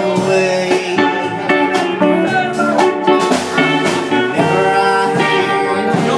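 Live country band playing an instrumental break, with electric guitars, steel guitar, bass and drums and no singing; some guitar notes bend in pitch.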